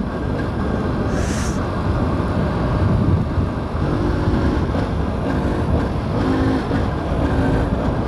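Aprilia SX125's single-cylinder four-stroke engine running while riding, buried in steady wind rumble on the helmet microphone, with a short hiss about a second in.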